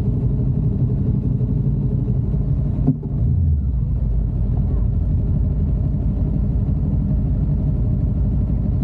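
Road vehicle on the move: a steady low rumble of engine and road noise, broken by one sharp knock about three seconds in.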